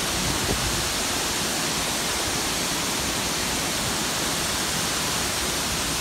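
Wachirathan Waterfall in heavy flow: a large volume of water falling down a tall rock face and crashing below, a steady, unbroken rush.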